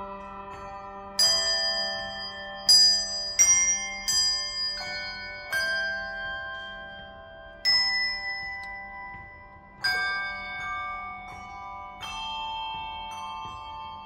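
A group of brass handbells playing a slow tune with chords: notes are struck one after another every second or two, each ringing on and fading under the next, with several bells sounding together.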